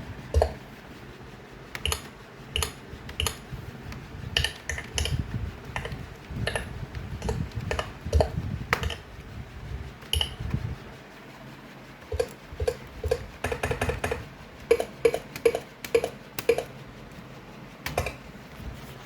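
Computer keyboard being typed on: irregular sharp key clicks, with a quicker, even run of keystrokes past the middle.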